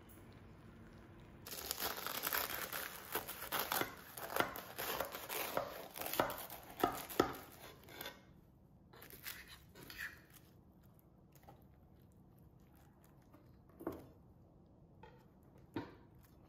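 A serving spoon breaking into the baked, flaky pastry crust of a pot pie: a dense crackling and crunching of the crust that starts about a second and a half in and dies away about eight seconds in. Then a few light scrapes and two knocks of the spoon against the cast-iron pot as filling is scooped out.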